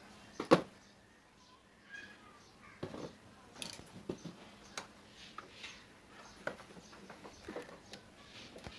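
Handling clicks and knocks of a plastic fibre splice tray and its case while optical fibre is laid into it, scattered and irregular, with one sharp knock about half a second in.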